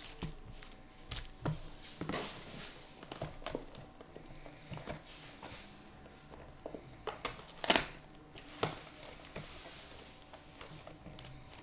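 Foil trading-card pack wrappers crinkling and tearing, with cards being handled: a scatter of short rustles and clicks, one louder crinkle about two-thirds of the way through.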